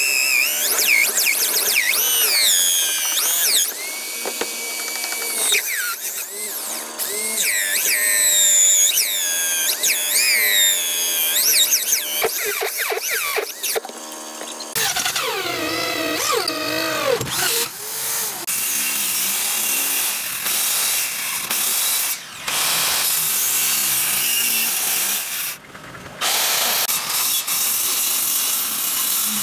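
Electric drill in a drill stand boring into a plywood plank with a large round bit, its motor pitch wavering up and down as the bit bites and eases off. From about 18 seconds in, a circular saw cutting through the wood with a steady, even noise.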